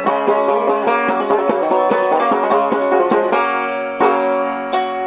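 Clawhammer-style five-string banjo playing the tune's closing run: a quick stream of picked notes, then about three seconds in a chord left to ring, followed by two single strummed chords as the tune ends.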